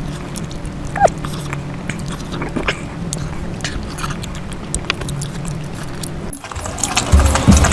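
Close-miked eating sounds: chewing and wet mouth clicks over a steady low hum, with a brief falling squeak about a second in. Louder, heavier chewing starts near the end.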